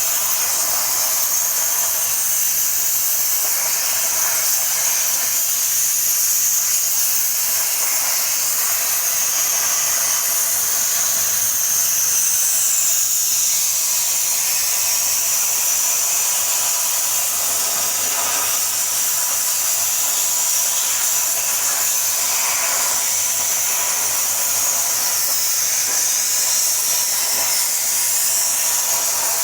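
Plasma cutter running steadily through metal, a constant high-pitched hiss.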